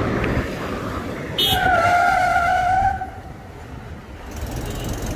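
A vehicle horn sounds once, a steady blare of about a second and a half that starts about a second and a half in, over the noise of traffic driving past close by. It is a warning at a pedestrian crossing the road in front of the traffic.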